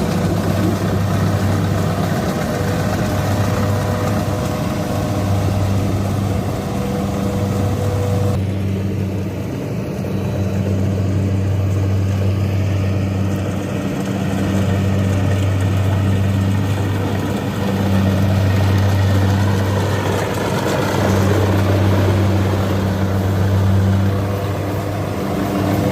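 Kubota DC-93 combine harvester's diesel engine running steadily, with a deep hum that dips briefly every few seconds.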